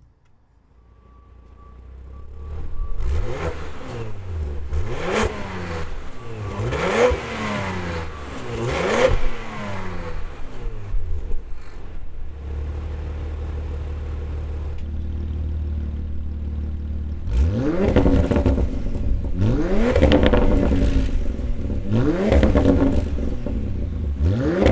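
Porsche Macan GTS 2.9-litre twin-turbo V6 through a Milltek Sport exhaust (downpipes with high-flow sports cats, resonated centre sections, valved rear silencer), revved in quick blips about every two seconds, four in a row, falling back to a steady idle for a few seconds, then blipped four more times.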